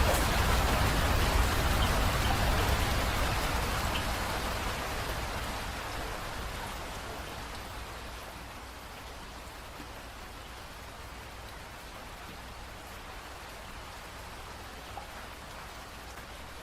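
Rain falling, heavy at first and easing off over the first several seconds, then settling into lighter, even rain.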